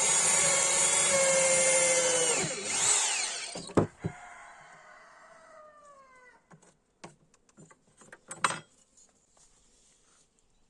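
Electric power tool running with a steady whine, surging briefly about three seconds in, then switched off, its motor winding down with a falling whine. A few sharp knocks and a short rasping burst follow.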